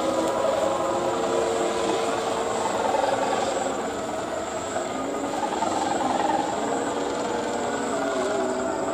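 Kite hummers (sendaren) on high-flying kites droning: several steady tones at once that waver slightly in pitch, going on without a break.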